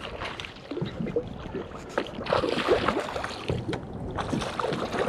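Water sloshing and splashing against the hull of a Seastream Angler 120 PD fishing kayak, with wind on the microphone and small irregular knocks.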